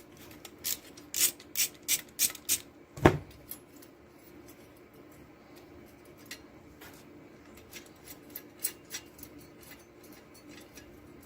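A wrench working metal fasteners as a vending-machine boiler's mounting is unscrewed: a quick run of sharp metal clicks, a louder knock about three seconds in, then faint scattered ticks.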